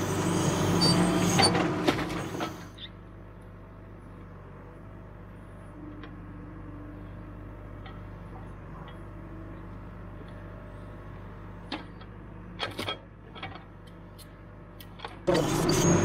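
John Deere 310SE backhoe's engine running, loud at first, then much quieter and muffled from about two and a half seconds in. A few sharp knocks come near the end, and the full loud engine sound returns just before the end.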